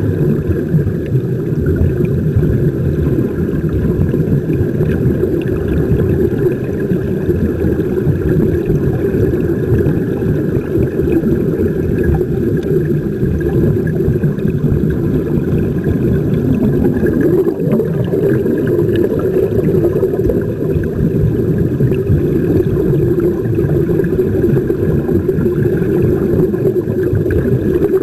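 Steady, muffled underwater rumble picked up by a submerged camera on the sea bed, a low drone with faint gurgling and no breaks.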